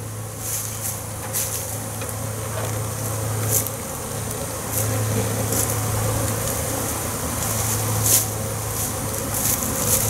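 A low, steady buzz of many honey bees flying around the opened hive boxes, swelling and fading. A few light clicks and rustles come from the wooden boxes being handled.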